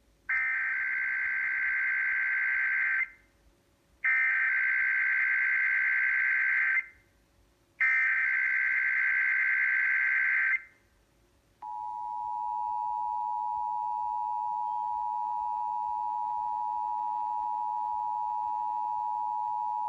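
Emergency Alert System broadcast signal: three bursts of digital SAME header data tones, each about three seconds long with about a second's gap between them. Then comes the steady two-tone EAS attention signal, held for about eight seconds, which opens a Required Monthly Test.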